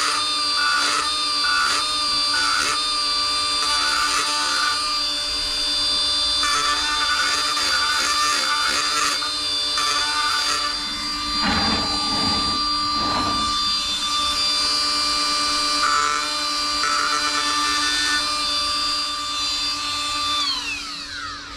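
Snap-on 7.2-volt brushless battery die grinder running with a steady high whine, its carbide burr cutting in repeated short bursts against the cast-iron A-series cylinder head as it rounds off the sharp combustion-chamber edge. Near the end the motor is switched off and winds down.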